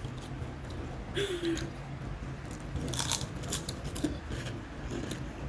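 Crisp crunching of a black ghost-pepper potato chip being bitten and chewed, with clusters of loud crunches about a second in and again around three seconds in.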